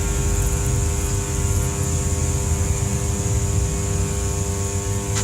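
Rewound microwave oven transformer humming steadily under a dead short, its secondary driving heavy current through a steel spanner to heat it.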